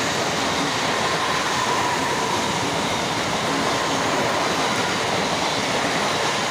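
Mumbai suburban local electric train passing fast close by: a loud, steady rush of wheels on rails and rattling carriages, with a faint steady whine running through it.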